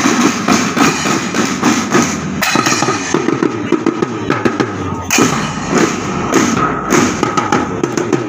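Marching band drums, snare-type drums and a bass drum, playing a fast, dense beat of strokes while on the march.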